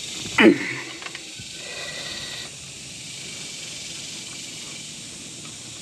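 An open-end wrench strained against a stuck lower brake caliper bolt that does not break free. A short, loud falling sound comes about half a second in, then a steady hiss.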